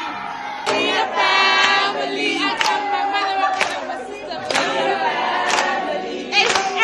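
A large crowd of students singing together in unison, with a sharp hit keeping time about once a second.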